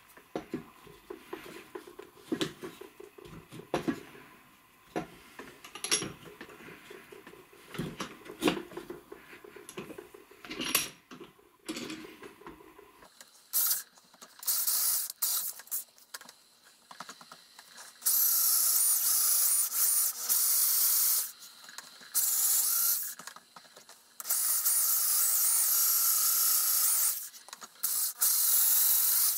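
Corded electric drill boring holes into a birch round in a series of bursts of several seconds each, starting about halfway through. Before that, knocks and rubbing as the wood is handled and clamped in a vise.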